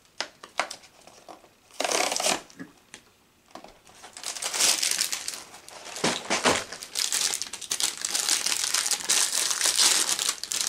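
A cardboard box being opened, with a few scattered taps and a short scrape, then from about four seconds in a continuous crinkling of a thin plastic wrapper as a Dilly Bar ice-cream bar is drawn out and unwrapped.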